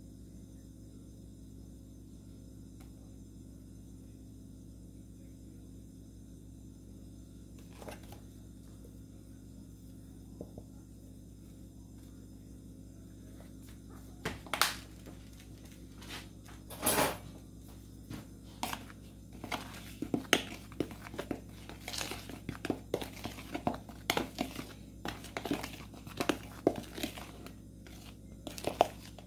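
Dry seasoned flour being mixed in a plastic mixing bowl: irregular rustling and light knocks that start about halfway through and come thick and fast toward the end, over a steady low hum.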